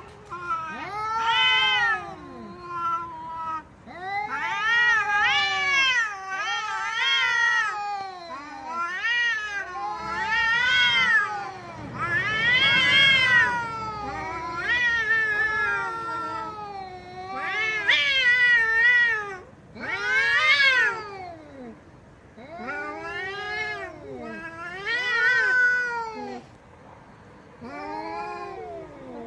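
Domestic cat meowing over and over, a long series of drawn-out, wailing meows, each rising then falling in pitch, about a dozen in all.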